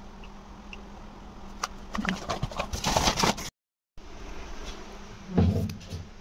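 Short rustling and handling noises over a faint steady low hum, louder about two to three seconds in, broken by a moment of dead silence and followed by a short low thump.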